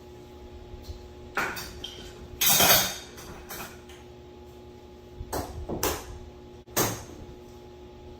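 Knocks and clunks of tools and hardware being handled, with the loudest, a longer clatter, about two and a half seconds in, and a steady low hum underneath.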